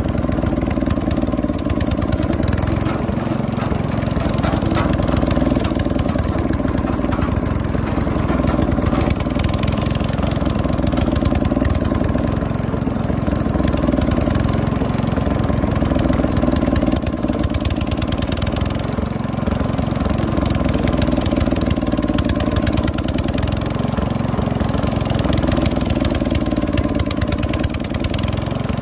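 The engine of a roughly 40-year-old Wheel Horse lawn tractor running steadily at an even speed while the tractor is driven along.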